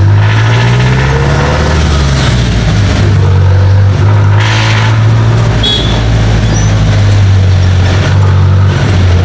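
A jeepney's diesel engine running steadily under way, heard from inside the open passenger cabin. A short hiss cuts in about four and a half seconds in.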